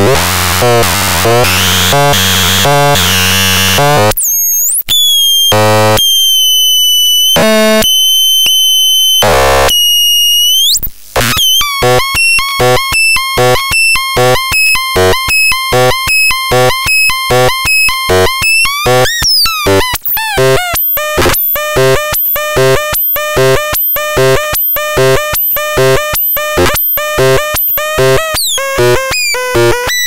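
Hand-built PHARATRON patch synthesizer sounding: harsh, dense buzzing noise gives way about four seconds in to separate whistling tones and pitch glides. From about eleven seconds in it plays a steady run of short electronic bleeps, about two a second.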